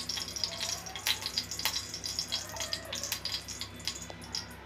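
Ghee melting into hot oil in an aluminium kadai, sizzling with a steady patter of small crackles and pops, a couple of sharper pops about a second in.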